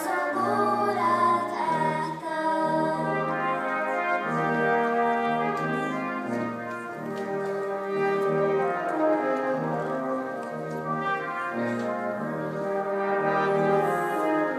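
Brass quintet playing: held chords from the upper brass over a bass line of short, separated low notes.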